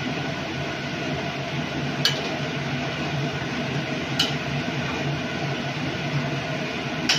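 Fish curry boiling hard in an aluminium kadai on a gas burner, a steady hissing, bubbling rumble, with a metal spatula clinking sharply against the pan three times as the fish pieces are turned.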